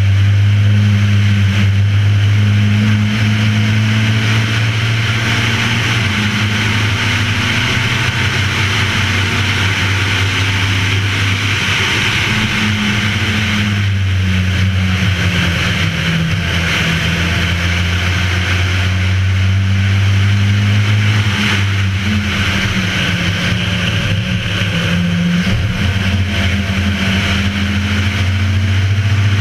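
Race car's engine running hard at speed, with wind and road noise rushing over a roof-mounted camera. The engine note steps up and down several times with gear changes and slowing for corners.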